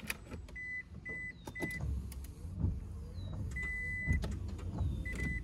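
A Gen 2 Toyota Prius's warning chime beeping at one steady pitch as the car is powered on: three short beeps, a longer beep midway, then two quick beeps near the end. A few sharp clicks from the controls, and a low rumble from the car comes in about two seconds in.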